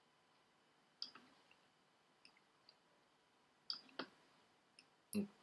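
Computer mouse clicking: several short, sharp clicks at uneven intervals, the loudest just before the end, over near silence.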